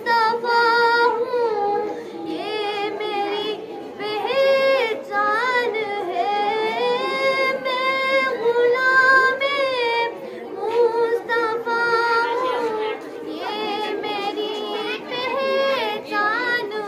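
Young girls singing a naat without instruments, in long held notes that waver and glide between phrases.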